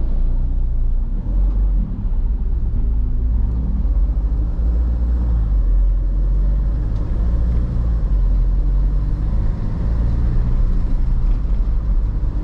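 Diesel motorhome's engine running as it drives off, a steady low rumble.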